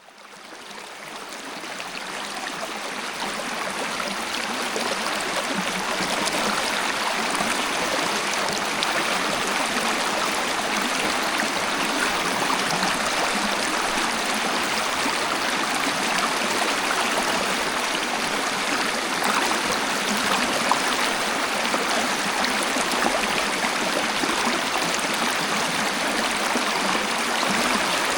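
Waterfall: a steady rush of falling, splashing water that fades in over the first few seconds and then holds even.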